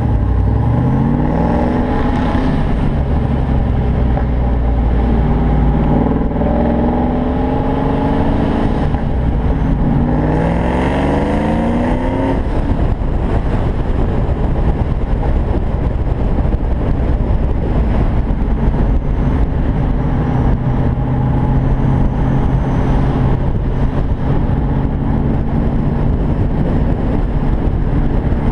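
Car engine accelerating through several gears, its pitch climbing and dropping back at each upshift over roughly the first twelve seconds, then settling into a steady cruise. Heard from the open cockpit of a convertible with the top down, with road and wind noise throughout.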